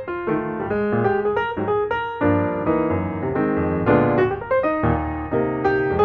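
Piano music, a run of struck notes and chords at a moderate pace.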